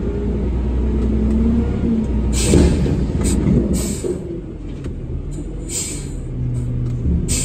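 Roll-off truck's diesel engine running, heard from inside the cab as a steady low drone whose pitch shifts about five seconds in. Several short hisses break in over it.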